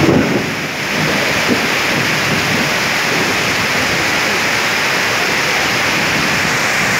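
Heavy rain pouring down in a steady, loud hiss, streaming onto a wet road.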